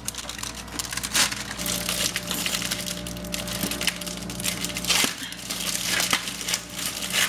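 Graham crackers being snapped and broken by hand, a dense run of crackling and sharp snaps.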